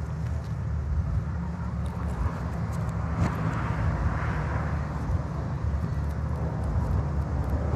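Steady low outdoor rumble, with a faint click about three seconds in.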